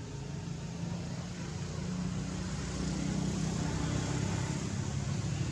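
Engine running steadily, getting louder toward the middle and easing slightly near the end, like a motor vehicle going by.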